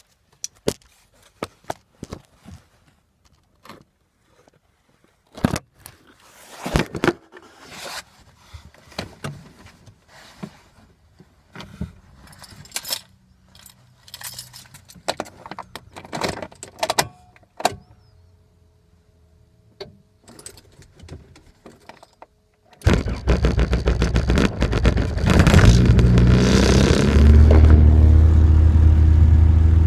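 Scattered clicks, knocks and jingling for about twenty seconds, then the turbocharged Honda B20Z2 four-cylinder swapped into a 2000 Civic starts with a sudden loud catch, revs up briefly and settles into a steady idle. The engine runs now that the wrong firing order has been corrected.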